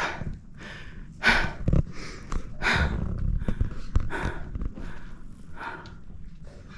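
A hiker breathing hard, loud open-mouthed breaths about once a second that ease off towards the end: the heavy breathing of exertion on a steep uphill climb.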